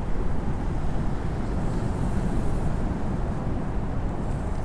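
Steady low rumbling outdoor noise with no distinct events, the kind left by distant road traffic or wind on the microphone.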